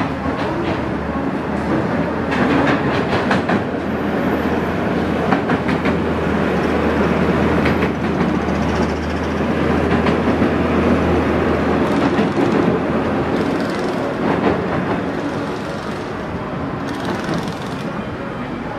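Track-laying work train rolling slowly on rails, its engine running with a steady low hum under irregular clanks and rattles from the sleeper-laden wagons and the gantry crane riding on them.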